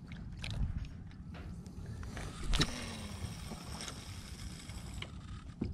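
Low rumble of wind and sea water lapping around a wooden fishing platform, with two light knocks, about half a second and two and a half seconds in.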